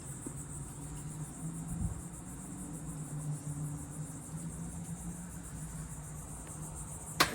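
Crickets chirping steadily over a low hum. About seven seconds in comes a single sharp click as the Trane XR13 heat pump starts up.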